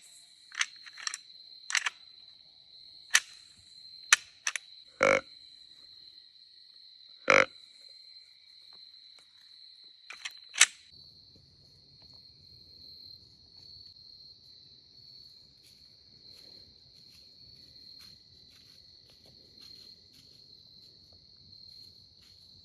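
Steady high-pitched chorus of crickets and other night insects. Over roughly the first ten seconds there are a dozen or so sharp clicks and knocks from handling, which are the loudest sounds.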